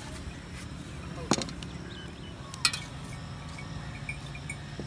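Two sharp metallic clinks about a second and a half apart: a serving spoon knocking against steel bowls as chaat is plated. Under them run a steady low hum and, from about halfway through, faint repeated chirping like crickets.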